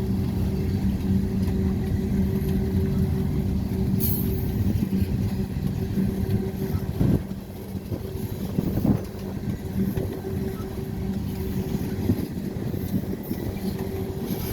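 Freight train rolling past: a steady diesel engine hum over a low rumble, easing off somewhat about halfway through.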